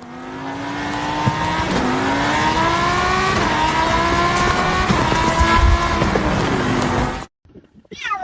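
A motor running with a steady pitched drone that slowly rises in pitch, with a few small steps, over a hiss; it cuts off suddenly near the end.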